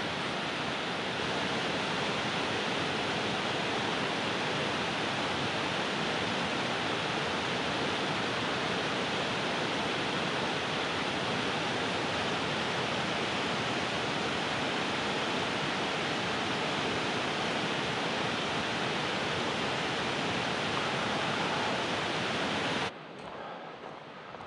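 Mountain creek cascading over boulders in a steady, loud rush of white water. The rush stops abruptly about 23 seconds in.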